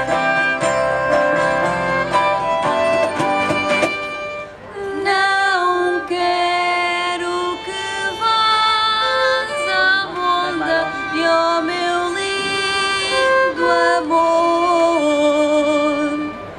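Live folk-ensemble instrumental passage: about four seconds of plucked and struck chords with keyboard, then a violin takes up the melody with vibrato over sustained keyboard accompaniment.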